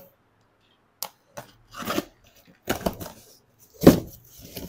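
Utility knife cutting through packing tape on a cardboard carton, then the cardboard flaps being pulled open: a sharp click about a second in, then several short scraping and rustling strokes, the loudest near the end, running into a rustle of cardboard and packing.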